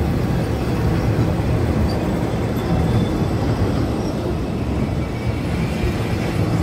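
Train running along the track: a steady low rumble that holds an even level throughout.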